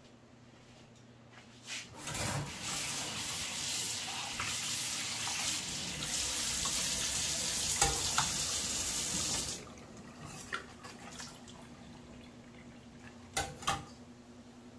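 Kitchen tap running into a stainless steel sink and over a metal bowl of raw chicken wings being rinsed. It turns on about two seconds in and shuts off after about seven and a half seconds. A couple of short knocks come near the end.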